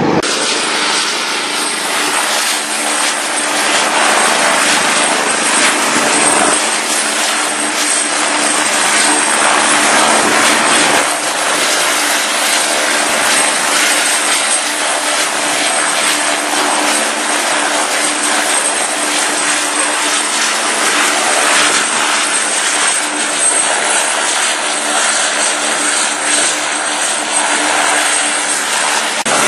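Helicopter running close by: a steady, loud turbine and rotor noise with a thin high whine, unchanging throughout.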